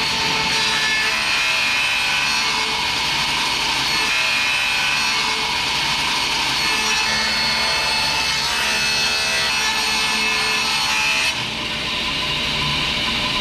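Table saw ripping a sheet of 10 mm Baltic birch plywood along the rip fence, a steady sawing noise. About eleven seconds in the blade clears the end of the cut and the saw keeps running, slightly quieter.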